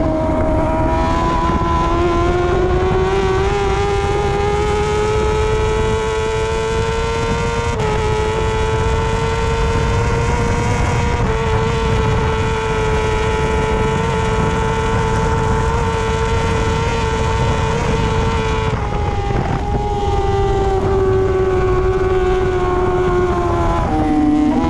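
Onboard sound of a BMW S1000RR 1000cc superbike's four-cylinder engine held high in the revs at racing speed, over a steady rush of wind. The pitch climbs over the first few seconds, then holds high with small steps. About three-quarters through it dips briefly, then falls steadily as the rider backs off, with a further drop near the end.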